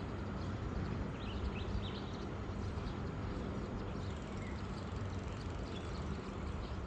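Steady rumble of road traffic, trucks and cars passing on an overpass, with small birds chirping a few times one to two seconds in.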